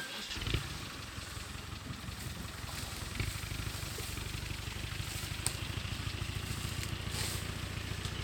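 A vehicle engine starts about half a second in and settles into a steady, low idle.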